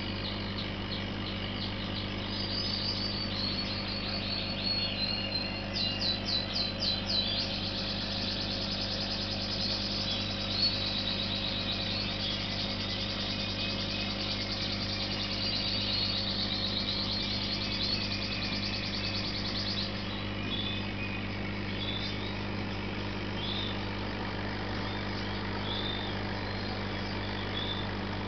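Steady low electrical hum with small birds chirping and trilling over it, the fast trills busiest in the first twenty seconds and then fading to scattered chirps.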